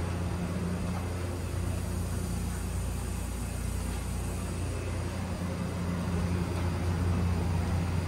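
Steady low mechanical hum with a faint even hiss over it.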